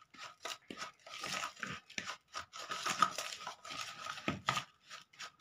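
A hand rubbing and mixing coarsely ground pickle masala with a little oil in a bowl: irregular gritty scratching and rustling strokes.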